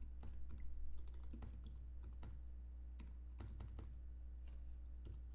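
Typing on a computer keyboard: light, irregular key clicks, over a steady low hum.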